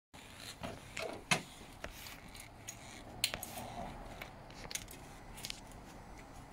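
Faint handling noises on a motorcycle before it starts: scattered small clicks and rustling, with the sharpest clicks about a second in and again about three seconds in.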